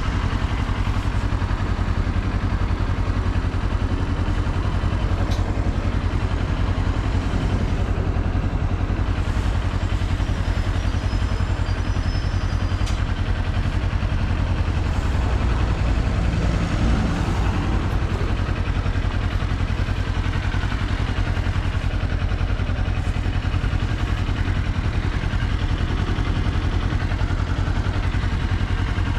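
Kawasaki Z400's parallel-twin engine running steadily on the move, with no marked revving or change in speed.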